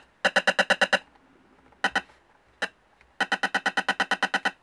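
Loudspeaker of a homemade infrared remote-control tester, an IR LED pickup feeding a transistor amplifier, sounding a remote's infrared code as its buttons are pressed. It gives rapid trains of sharp clicks about ten a second: one train for under a second, two short single bursts, then a longer train near the end.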